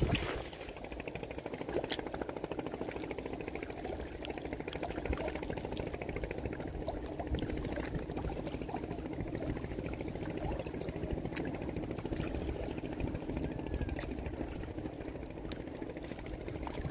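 Spinning fishing reel being cranked steadily, a fast even whirring with a few light clicks, over water lapping on rocks.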